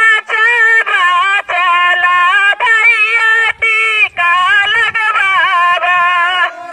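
A woman singing through a handheld megaphone, her voice thin and tinny with almost no low end, in held notes that break off every half second or so.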